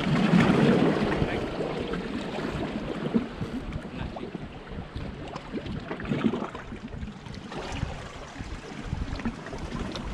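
Wind buffeting the microphone over small waves lapping against shoreline rocks, louder for the first second or so.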